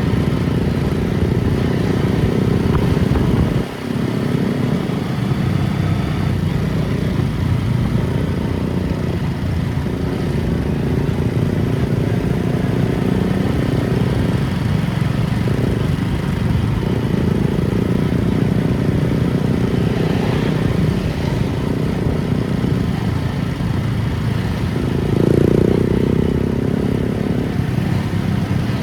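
Vehicle engine and road noise, steady and loud while driving, with a brief dip about four seconds in and a short swell near the end.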